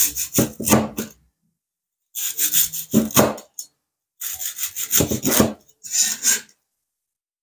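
A stainless cleaver slicing through a crispy, cornstarch-coated fried chicken thigh on a bamboo cutting board: the crust crackles and crunches as the blade goes through, with knocks of the blade on the wood. Four rounds of cutting, each lasting about a second or so, with short pauses between them.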